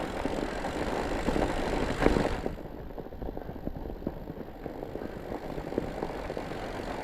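Fat bike tyres fitted with snow chains rolling over snow: a steady crunch and rattle of many small ticks, louder up to about two seconds in, then quieter and duller.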